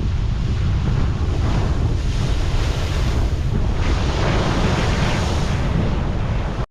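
Big ocean waves crashing and washing over shoreline rocks, surging twice, with a heavy low rumble of wind buffeting the microphone.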